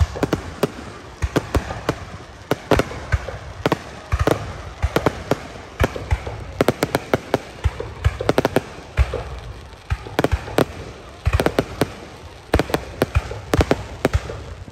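Aerial fireworks display: shells launching and bursting overhead in a rapid, irregular string of sharp bangs and crackles, several a second, with no let-up.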